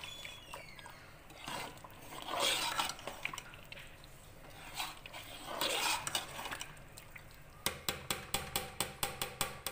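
Metal ladle stirring thick curry in a metal pot, with wet, soft swishes. Near the end comes a quick run of metallic clinks, about five a second, as the ladle knocks against the pot.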